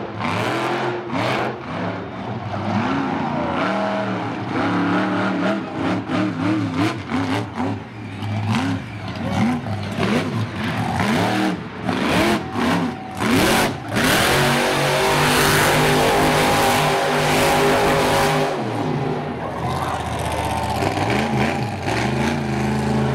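Monster truck engine revving up and down over and over during its freestyle run. About fourteen seconds in it is held at high revs for several seconds with a rushing noise over the top. Near the end it runs at a steadier pitch as the truck spins its tyres in donuts.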